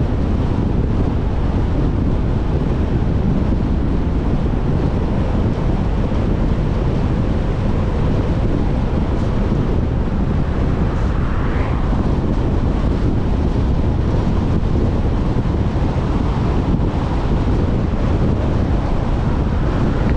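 Wind buffeting the microphone of a camera on a moving vehicle: a loud, steady low rumble, with the vehicle's road noise beneath it.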